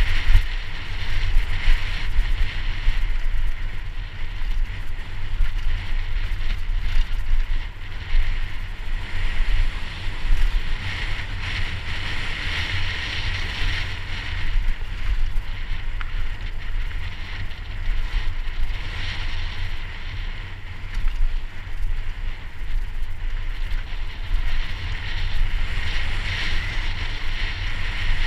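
Wind buffeting a helmet camera's microphone on a downhill mountain bike speeding down a dirt trail, a steady low rumble, with the hiss of tyres rolling over dirt.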